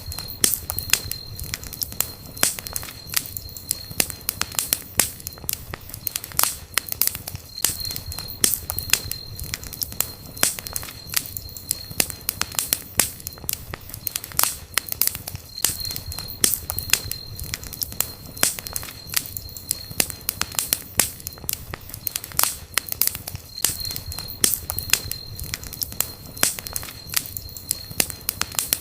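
Campfire burning, its wood crackling and popping with many sharp snaps over a low rush of flame. A thin high steady whistle comes and goes every few seconds.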